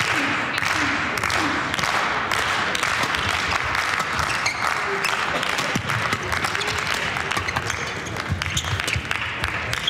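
Spectators clapping in a sports hall during a badminton rally, with the sharp strikes of rackets hitting the shuttlecock. The clapping is heaviest in the first few seconds and thins out in the second half.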